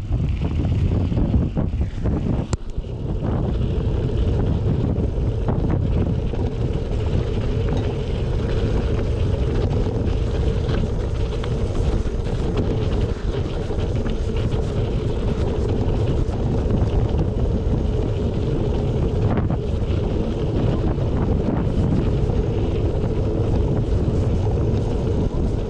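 Wind buffeting the microphone over the steady hum of a knobby Maxxis Minion DHR II 29x2.6 mountain-bike tyre rolling at speed, with a few faint clicks.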